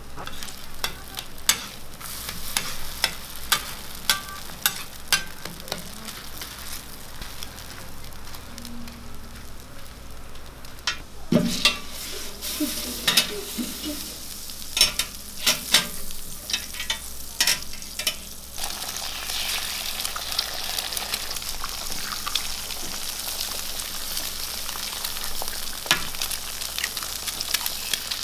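Burger patties sizzling on a flat-top griddle, with sharp clicks and knocks of a metal spatula and steel egg-ring frames against the plate, mostly in the middle. In the last third a louder, brighter sizzle sets in as eggs fry in the rings.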